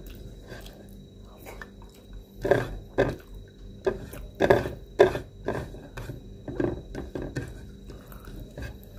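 A man eating with his hands: chewing and mouth sounds, with fingers working food on a plate, in an irregular string of short sounds that are loudest through the middle.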